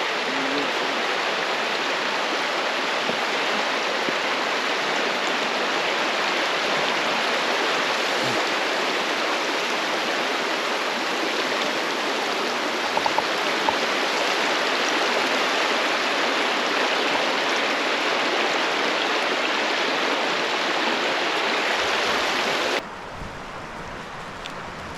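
Rushing river water, a steady loud hiss of flowing whitewater, which drops away suddenly near the end to a much quieter background.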